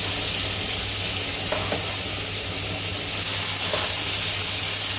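Fresh pappardelle sizzling in hot olive oil in a frying pan, a steady hiss with a low hum underneath and a couple of faint knocks.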